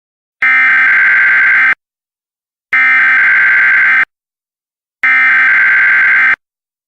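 Emergency Alert System SAME header: three identical buzzing data-tone bursts, each a little over a second long and about a second apart, marking the start of an EAS alert.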